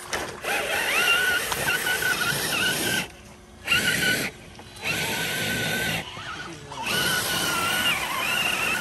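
Radio-controlled scale crawler's electric motor and gearbox whining over a hiss, in several bursts of throttle with short pauses between them, the pitch wavering with the load.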